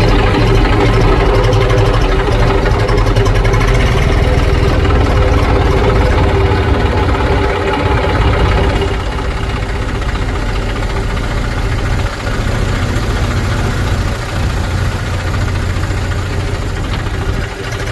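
Heavy diesel engine of farm machinery running steadily, a little quieter from about nine seconds in.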